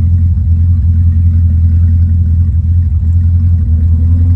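Steady, loud low rumble of a running engine, holding an even drone without revving.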